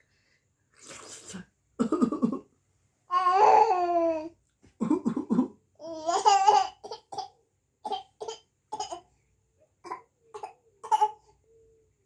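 A small child pretend-coughing, 'uhu uhu', imitating an adult's cough, with laughter; the laughing comes in the first half and a run of short coughs follows.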